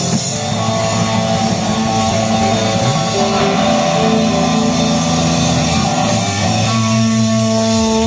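Rock music with electric guitars holding long, steady chords that change every second or so.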